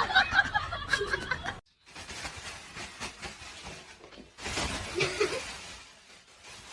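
A person laughing, cut off abruptly about one and a half seconds in, then quieter mixed noises with another short burst of laughter-like sound near the middle.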